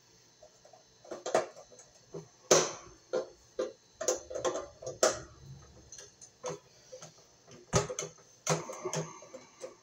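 Irregular metallic clicks and knocks as pliers grip and twist the sheet-metal end of an electric baseboard heater, working a knockout loose. The sharpest snaps come about two and a half seconds in and again near eight seconds.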